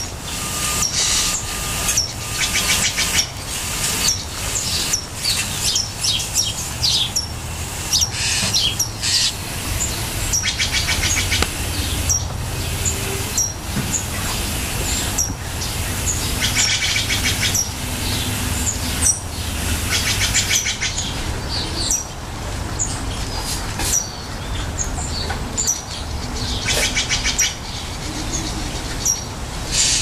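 Steller's Jays calling: harsh calls over and over, several of them in rapid rattling series, over a low steady rumble.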